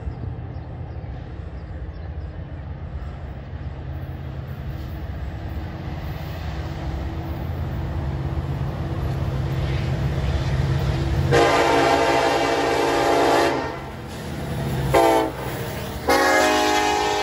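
Union Pacific diesel freight locomotive approaching, its engine rumble growing steadily louder. It sounds its multi-chime horn: a long blast about eleven seconds in, a short one near fifteen seconds, and another long blast starting near the end, the warning for a grade crossing.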